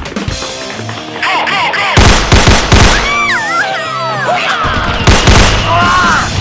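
Gunfire sound effects, volleys of rapid loud shots starting about two seconds in, over background music.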